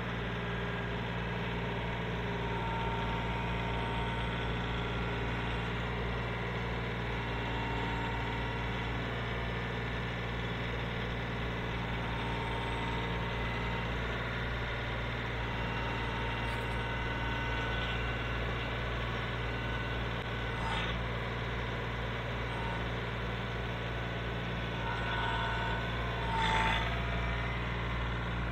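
Compact diesel tractor engine running steadily while its front-loader grapple moves a large pine log onto a sawmill bed. A short, sharper squeal rises over the engine near the end.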